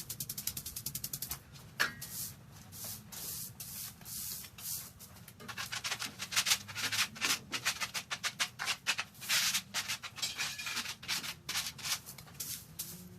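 Quick, repeated wiping strokes scrubbing spilled engine oil off the floor: a short fast burst at the start, then a long run of strokes from about halfway, with a sharp click about two seconds in.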